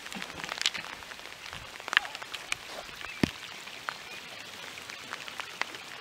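Steady rain falling, a soft even hiss broken by irregular sharp taps of drops, the loudest about two and three seconds in.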